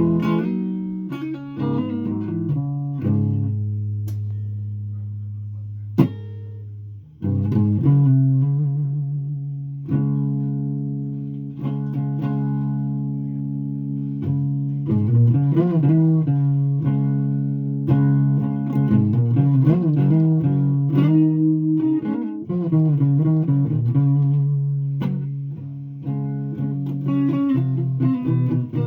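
Guitar played solo: chords struck and left to ring out, changing every second or few, with a sharp click about six seconds in and a brief break just before seven seconds.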